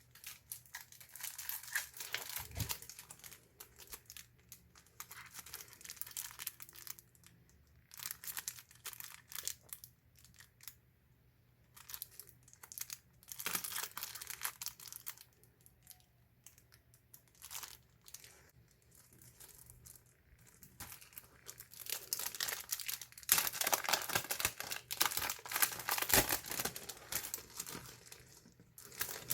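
Packaging being torn and crinkled by hand in repeated bursts with short pauses between them. The longest and loudest bout comes about three-quarters of the way through.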